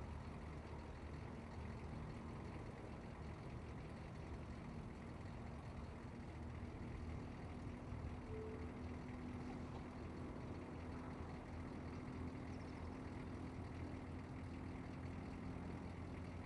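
Hummer H1 idling: a steady low engine hum with a steady tone above it.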